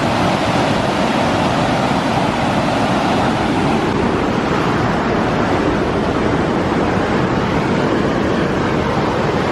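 Nawadaha Falls, a stair-stepped cascade on the Presque Isle River, with water rushing steadily over its rock ledges in a loud, even wash of sound.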